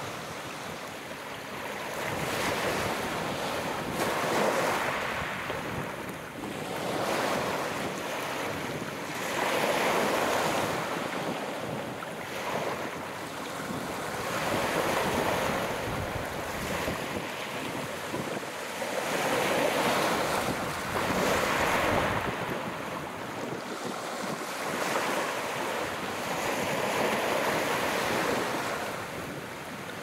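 Sea waves breaking on the shore, the surf swelling and falling away in repeated washes a few seconds apart.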